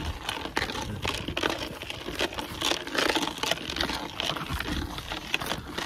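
Rustling footfalls of someone running through long grass, with fabric rustling close to the microphone.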